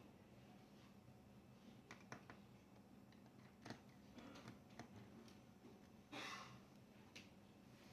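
Near silence: low room tone with a steady hum, a few faint clicks, and a brief soft rustle about six seconds in.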